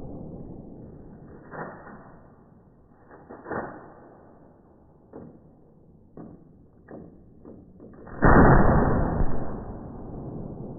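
A gunshot played back slowed down: a long, deep, muffled boom about eight seconds in that fades over a second or so, after several fainter knocks.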